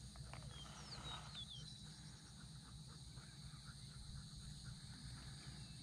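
A few short, high, falling bird chirps in the first two seconds and one more near the end, faint over a steady low rumble of wind on the microphone.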